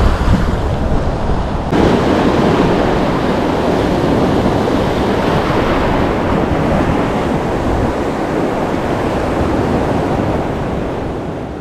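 Steady rush of surf and wind, with wind buffeting the microphone. The noise jumps louder just under two seconds in and fades out at the end.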